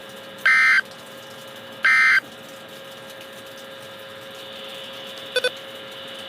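Emergency Alert System end-of-message data bursts: two short, loud, buzzy digital squawks about a second and a half apart, signalling the close of the alert. A faint steady hum runs underneath, and two quick blips come about five seconds in.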